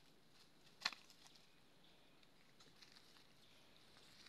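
Near silence with one sharp click a little under a second in and a few faint ticks after it.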